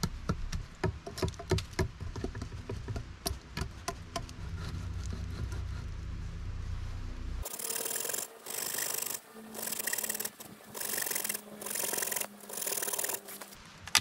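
Irregular sharp knocks and chips of a hand tool working into a wooden post. About halfway through, a bow saw starts cutting across the post in rasping back-and-forth strokes, roughly one a second, notching it.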